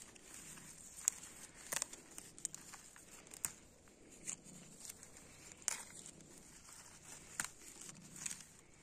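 Wild greens being picked by hand among wet grass: faint rustling with about six short, sharp snaps and tears as stems are broken off.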